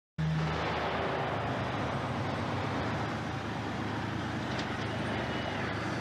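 Steady rumble of vehicle engines and street noise, starting abruptly a moment in.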